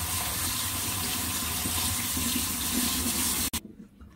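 Kitchen tap running onto mushrooms in a plastic colander, the water splashing into a stainless steel sink; the sound cuts off abruptly about three and a half seconds in.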